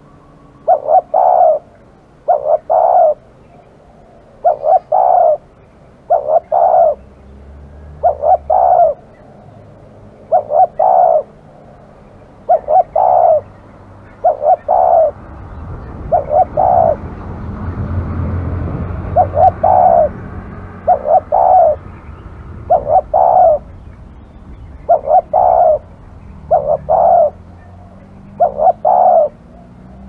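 Spotted dove (terkukur) cooing over and over, a short phrase of two or three notes roughly every two seconds. A low rumbling noise swells and fades around the middle.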